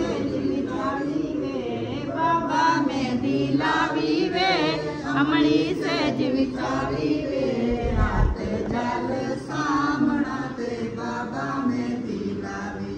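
Several voices singing a song together, the long held notes wavering. There is a brief low thump about eight seconds in.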